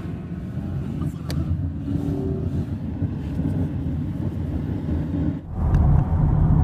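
Car driving along a highway, heard from inside the cabin: a steady low rumble of engine and tyres on the road, dropping out briefly about five and a half seconds in.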